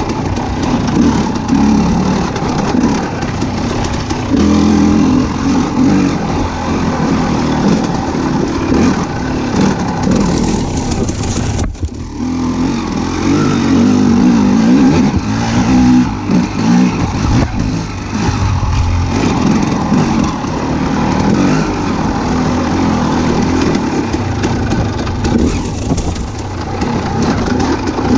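A motor vehicle's engine running and revving, with a brief drop-out about twelve seconds in.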